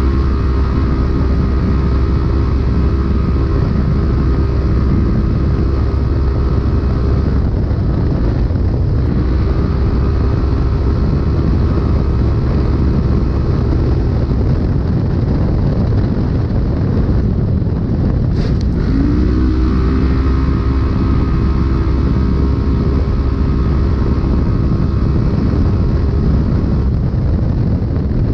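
Polaris race UTV heard from inside the cab at racing speed: the engine runs loud and steady over constant rumble and rattle from the rough terrain. Its note drops away twice, the second time for several seconds, then climbs back up about two-thirds through as it gets back on the throttle. There is one brief sharp knock just before that.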